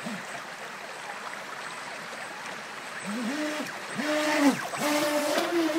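Rushing water of a storm-swollen creek, then the brushless electric motor and jet drive of an RC jet boat whining in three short throttle bursts from about three seconds in, the pitch climbing and dropping with each burst.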